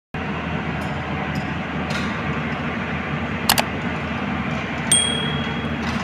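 Hyundai 215 excavator's diesel engine running steadily as it lifts a trailer concrete pump. A sharp metallic clink sounds about three and a half seconds in, and a high metallic ring holds for about a second near five seconds.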